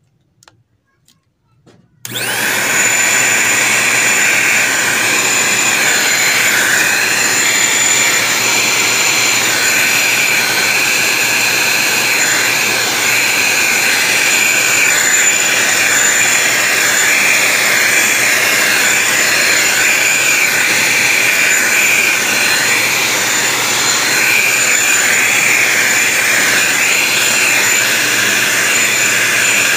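Handheld vacuum cleaner switched on about two seconds in, then running steadily and rather loud with a high whine, its brush nozzle worked over the blades and grille of an electric fan to suck off dust.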